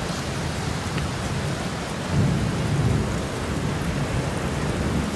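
Steady rain falling, an even hiss, with a louder low rumble that swells about two seconds in and lasts around a second.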